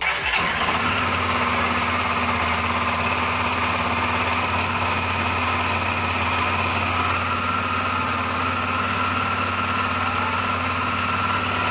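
Honda CB 300R's single-cylinder, fuel-injected engine idling steadily, freshly rebuilt with a new cylinder head.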